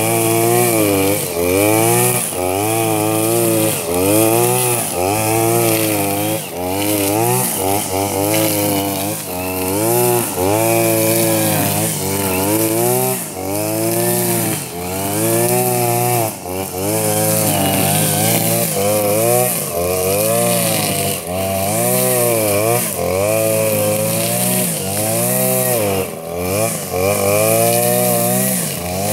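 Blade Alpin 520 two-stroke petrol brush cutter with 2.7 mm nylon trimmer line cutting grass, its engine revving up and falling back about once a second as the throttle is worked, over a constant high hiss from the spinning line.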